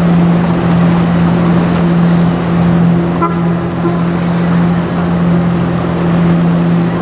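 Steady low drone of the passing general cargo ship Alaskaborg's engine, over a constant rushing noise, with a brief higher-pitched tone about three seconds in.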